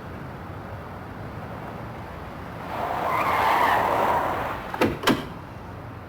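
A skidding sound swells about three seconds in and fades, followed by two sharp knocks in quick succession.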